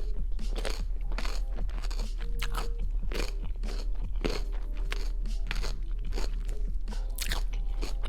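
Cucumber being chewed close to the microphone: a run of many quick, wet crunches.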